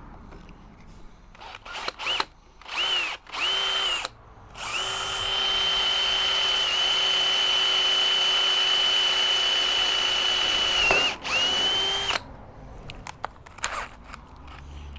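Power drill boring a pilot hole through a plate of a model tank's hull. It spins up twice briefly, then runs with a steady whine for about six seconds, stops for a moment, and gives one last short burst.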